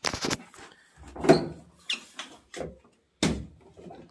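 A run of sharp clicks and knocks from a washing machine's sheet-metal cabinet and plastic fittings being worked by hand during disassembly, with two heavier knocks that carry a dull thud, about a second in and about three seconds in.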